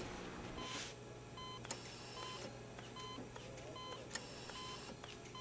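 Hospital patient monitor beeping steadily, a short high beep about every three-quarters of a second, over a faint low hum.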